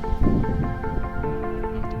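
Background music: a melody of short, evenly stepped notes, with a brief low rush of noise near the start.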